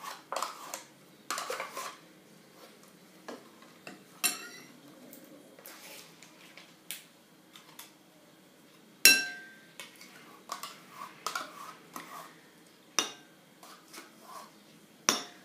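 Metal spoon clinking and scraping as yogurt is spooned out of plastic pots into a glass bowl, with scattered light taps. One sharp, ringing clink of the spoon on the glass about nine seconds in is the loudest, and a few more sharp clinks follow.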